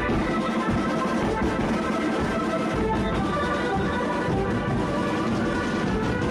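Marching brass band with large bass drums playing: held brass notes over continuous drumming, loud and steady throughout.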